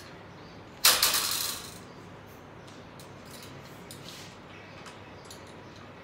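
Metal wire bird cage rattling: one short loud jangle about a second in, then scattered light clicks as a ringneck parrot's feet grip the wires while it climbs down into the cage.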